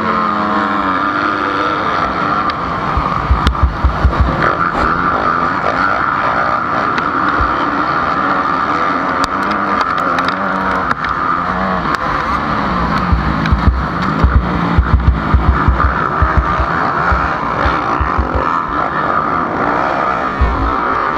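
Several motocross bikes racing in a pack, led by the on-board HM CRE 250 F's four-stroke single-cylinder engine revving up and down, with the other dirt bikes' engines around it. Low thuds from wind and jolts hit the microphone in two spells, about 3 and 13 seconds in.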